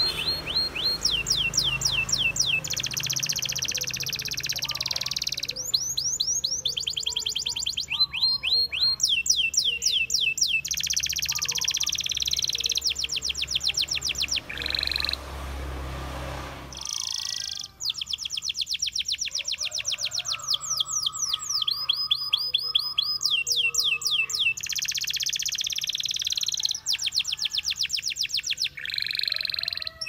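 Domestic canary singing a long, continuous song: rolling trills and runs of rapidly repeated down-slurred notes, each phrase changing to a new note every second or two.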